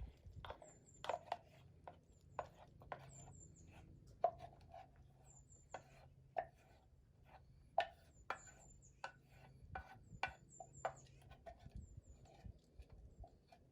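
Faint, irregular clicks and taps of a utensil scraping and knocking inside a metal canteen cup as macaroni and cheese is spooned out onto a plate.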